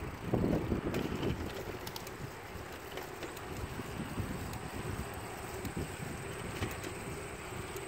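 Wind rushing over the microphone while riding a bicycle on pavement, with a louder burst of low rumble about half a second in.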